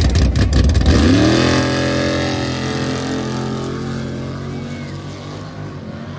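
Mud-racing vehicle engine: a loud rough rumble, then revving up about a second in and holding a steady high pitch while gradually fading as it pulls away.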